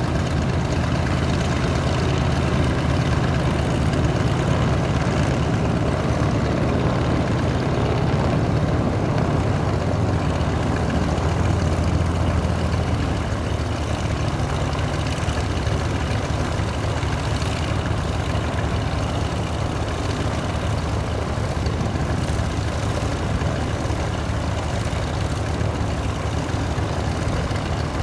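Cessna 337 Skymaster's push-pull twin piston engines and propellers running in a steady low drone, a little quieter after about halfway through.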